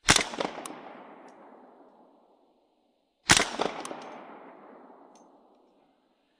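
Two gunshots about three seconds apart, each echoing away over about two seconds.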